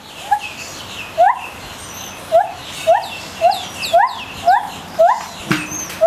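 Gibbon singing: a run of short, rising whoop notes, about two a second, quickening through the phrase.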